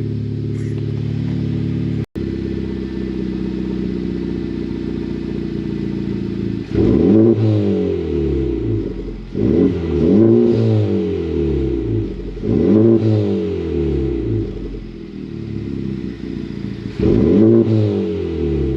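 Honda Civic Type R's turbocharged four-cylinder engine, breathing through a 27WON front pipe and catback exhaust, idling steadily and then blipped four times. Each blip rises in pitch and falls back to idle.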